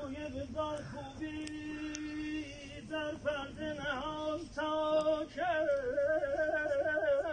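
A male singer performing unaccompanied Persian classical vocal (avaz), holding long notes broken by quick, wavering melismatic ornaments.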